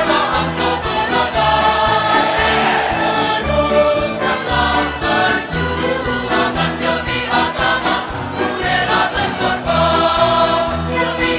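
Music with a choir singing over a steady, repeating bass beat.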